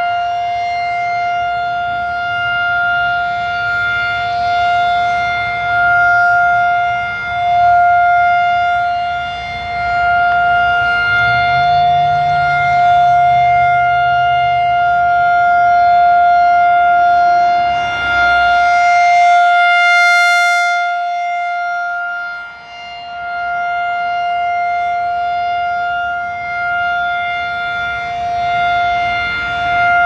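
Federal Signal 2001-SRNB electromechanical outdoor warning siren sounding its steady full-alert tone at one unchanging pitch, swelling and fading slowly as the single horn rotates.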